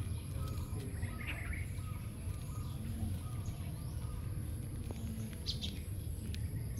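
Outdoor ambience: birds chirping briefly a few times, about a second in, around five and a half seconds and near the end, over a steady low rumble and a constant high-pitched whine.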